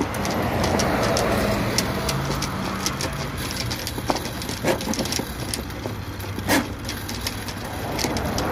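Electric drum-type drain snake running, its spinning steel cable fed by hand into a backed-up sewer clean-out: a steady motor hum with a rattly hiss and a few sharp clicks of the cable.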